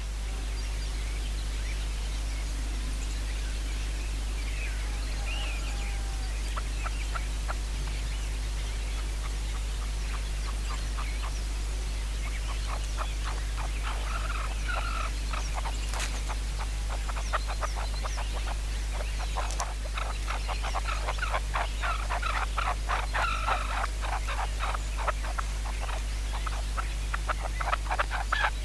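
Red-legged partridges calling in a fast run of short, dry clicking notes, about four or five a second. The notes are sparse at first and grow denser and louder through the second half. Faint small-bird chirps and a steady low hum lie beneath.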